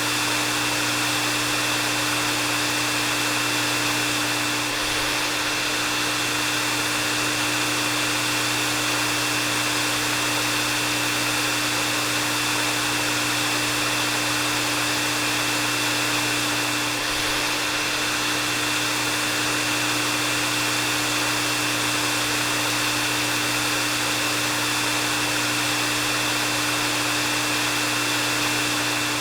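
Hair dryer running steadily: a continuous rush of blowing air over an even motor hum, with a thin steady high tone on top.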